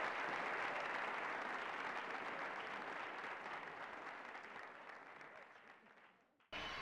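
Audience applauding, fading out gradually over about six seconds to silence.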